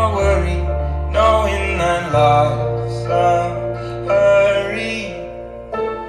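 A song with singing and plucked strings over held bass notes, played back at about half volume through the Pyle PPHP-159WMU portable powered speaker, a 15-inch woofer with a horn tweeter on top.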